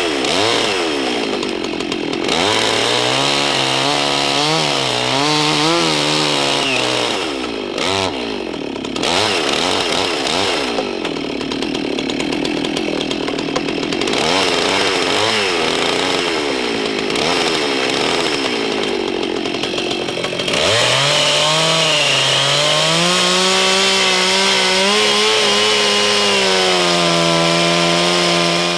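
Chainsaw cutting down into a log, making the vertical side cuts of a square notch. The engine speed wavers up and down as the chain bites into the wood, then about two-thirds of the way through it climbs and holds high and steady under full throttle.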